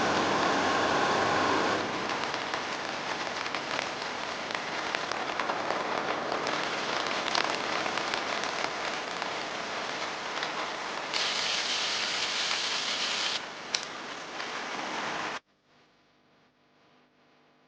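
Heavy rain falling steadily, with scattered sharp drop hits. It cuts off abruptly about fifteen seconds in, leaving only a faint low hum.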